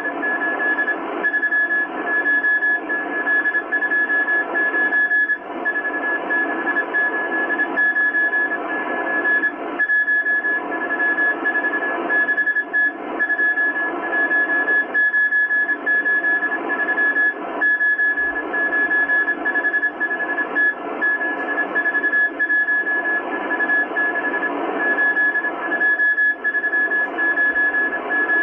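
Shortwave Morse code (CW) signal from the M12 Russian spy numbers station on 14951 kHz, heard through a Kenwood R-1000 receiver: a single high beep keyed on and off in dots and dashes over steady band hiss and static. The uploader takes this transmission to carry a real coded message.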